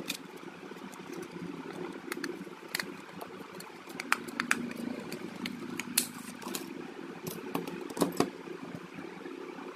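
Scattered sharp plastic clicks and scrapes from a thin plastic opening card being worked between a smartphone's frame, battery and display. Underneath is a steady low hum.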